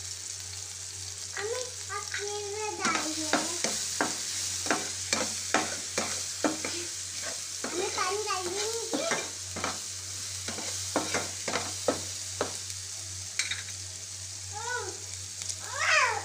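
Chopped onion and tomato sizzling in hot oil in a metal wok while a spatula stirs them, with repeated scraping strokes. Squeaky, wavering scrapes of the spatula on the pan come at times, the loudest near the end.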